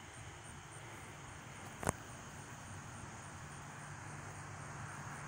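Faint outdoor background: a steady distant low rumble, with insects chirring in a rapid, even high-pitched pulse. A single sharp click about two seconds in.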